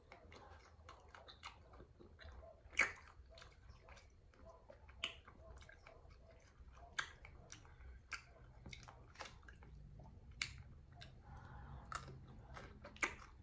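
Close mouth sounds of someone eating crunchy pickles: soft chewing broken by sharp crisp snaps every second or two.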